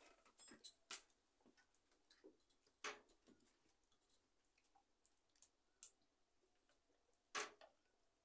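Faint eating sounds of a person eating rice with the fingers: a handful of short, sharp mouth clicks and smacks of chewing and fingers working the rice, scattered over near silence.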